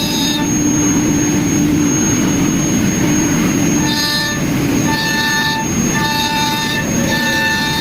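Multi-spindle CNC wood lathe running, with a steady machine noise and a constant high whine. From about four seconds in, a pitched tone sounds about once a second, each lasting about half a second.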